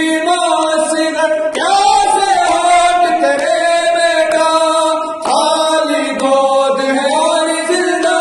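Male voices chanting a noha, an Urdu lament, unaccompanied, in long held notes that slide in pitch. A new phrase starts about one and a half seconds in and again about five seconds in.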